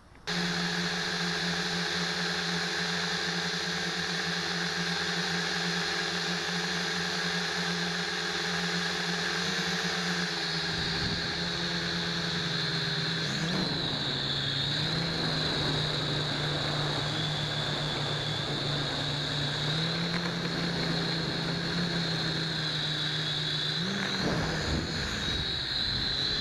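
Small quadcopter's motors and propellers whirring close up, as picked up by a camera mounted on the drone itself; the sound starts abruptly and holds steady, its pitch dipping and wavering a little a few times as the throttle changes.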